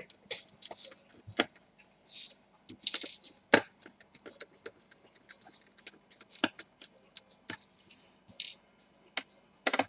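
Small screwdriver backing out the screws that hold a laptop display to its hinges: irregular light clicks, taps and short scratchy scrapes of metal and plastic, with a sharper click about three and a half seconds in.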